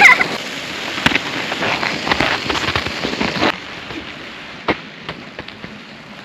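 A sled sliding downhill over snow, a dense crackling scrape with many sharp clicks. About three and a half seconds in it drops to a fainter hiss.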